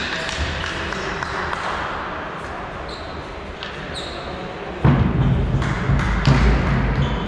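Echoing sports-hall ambience with scattered thumps. About five seconds in, a much louder low rumble starts suddenly and keeps going.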